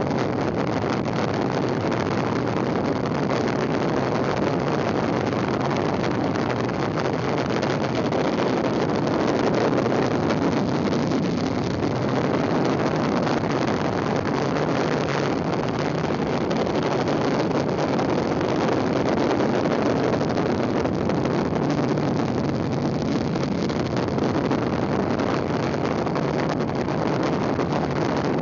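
Steady rushing noise of a fast downhill ride on a folding kick scooter: wind buffeting the microphone, mixed with the wheels rolling over asphalt.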